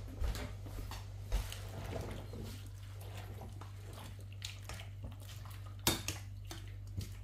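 Pot and utensil handling while blanching Swiss chard: a few soft knocks, then a sharper clink about six seconds in, over a steady low hum.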